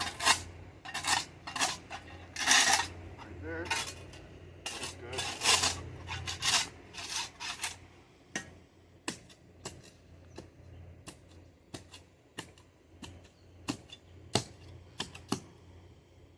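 Shovel blade scraping and clinking on a concrete slab as dirt is cleared off it: a run of longer scrapes, then sharp single clinks about once a second in the second half.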